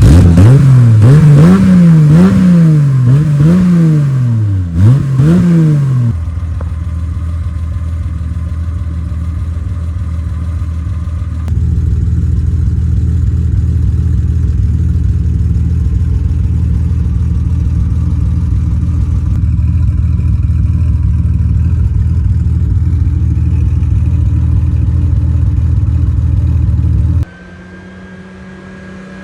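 A BMW M90 (M30B35) 3.5-litre straight-six, breathing through headers and a 3-inch exhaust, is revved up and down several times and then settles to a steady idle. Near the end it drops to a quieter, rising engine note.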